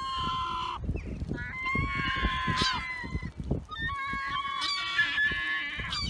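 Juvenile gull squawking in three long, drawn-out calls, one after another. Each call holds a steady high note, and the middle one breaks upward into a sharp squeal about two and a half seconds in.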